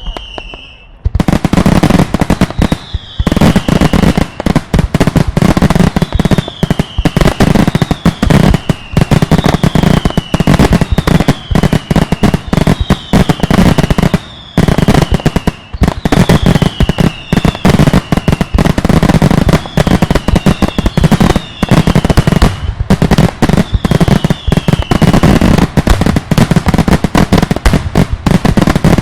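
Daylight fireworks salvo: from about a second in, loud firework bangs follow one another so fast that they run together, with a falling whistle over them about once a second.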